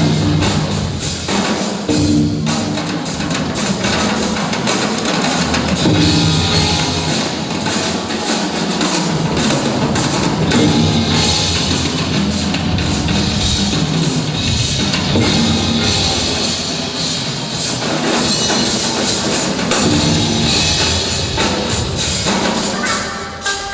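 Live drum performance: many fast, loud drum strokes with a drum kit, played against music with a steady low pitched part.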